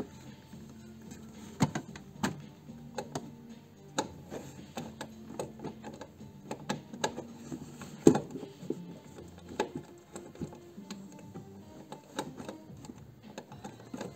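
Ratchet wrench working a 13mm fastener in short, irregular strokes: clicks of the ratchet and knocks of the tool against metal, the loudest knock about eight seconds in.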